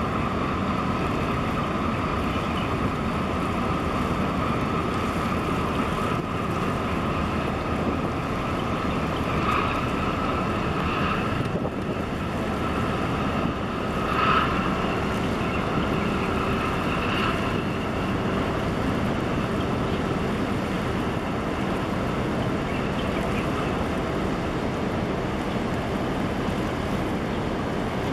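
Steady drone of a container ship and its escort tug's engines passing close by, with a higher whine that fades out about two-thirds of the way through, over wind noise on the microphone.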